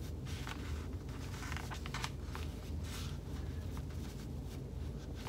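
Paper pattern piece and fabric panel being handled and marked with a pen: soft rustling and scattered light scratches and ticks over a low steady hum.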